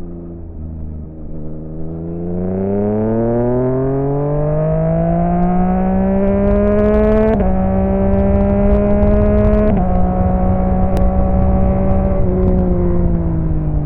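Yamaha XSR900's inline three-cylinder engine through an M4 aftermarket exhaust, accelerating. The revs climb steadily, drop sharply at a gear change about seven seconds in, step down again at a second shift near ten seconds, then ease off toward the end.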